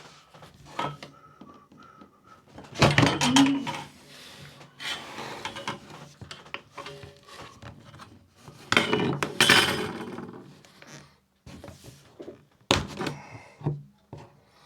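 Steel rule prying and scraping along the seam of a plastic tablet case, with irregular clicks and knocks. The loudest scraping comes about three seconds in and again around nine to ten seconds in.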